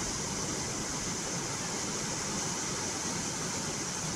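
Ash slurry from a breached power-plant ash pond flowing across the ground, a steady rushing noise.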